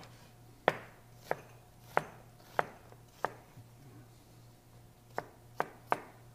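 Chef's knife chopping diced onion on a plastic cutting board: five even knocks about two thirds of a second apart, a pause of about two seconds, then three quicker knocks near the end.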